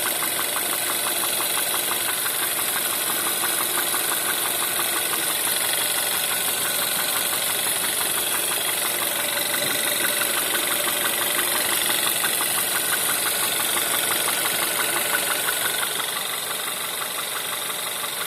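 Volkswagen 1.4 TSI (CAVD) petrol engine idling cold with a fast, regular knock: the cold-start knock this engine is being checked for. The level drops slightly about sixteen seconds in.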